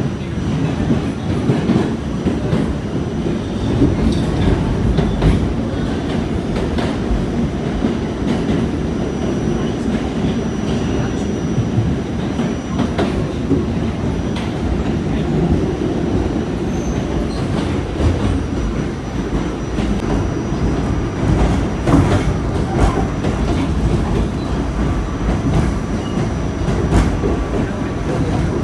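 R46 New York City subway car running between stations, heard from inside the car: a steady rumble of wheels on rail with scattered clicks over rail joints and a faint, steady high tone.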